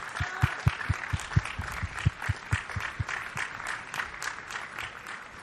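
Crowd applauding, with a beat of low thumps about four a second through the first three seconds; the clapping dies down near the end.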